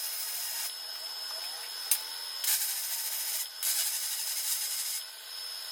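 Welding arc laying tack welds on steel plate: a crackling hiss that starts and stops abruptly in a few bursts of about a second each, with a single sharp click partway through.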